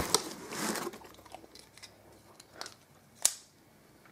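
Product packaging being handled: crinkling and rustling for about the first second, then two short, sharp knocks near the end.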